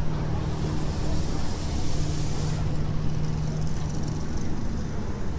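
An engine running steadily, giving a constant low hum, with a brief rush of hissing noise in the first half.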